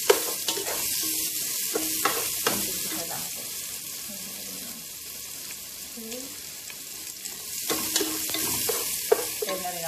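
Chopped garlic sizzling in olive oil in a pot, stirred with a wooden spatula that knocks against the pot several times, the sharpest knock right at the start.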